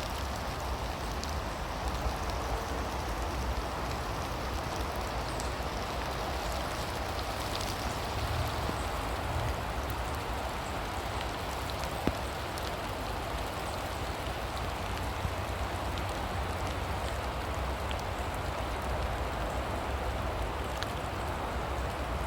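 Heavy rain falling steadily: an even hiss of rain with scattered sharper drop taps, one standing out about halfway through.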